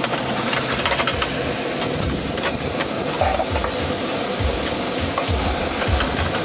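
Food sizzling in a frying pan on a gas stove, with a metal fork clicking and scraping against the pan as it is stirred.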